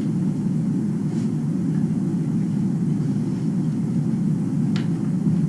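A steady low rumble, with one short crackle near the end.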